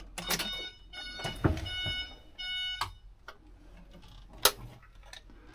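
Electronic beeping: several short bursts of steady multi-tone beeps over the first three seconds, among small clicks, then a single sharp click later on.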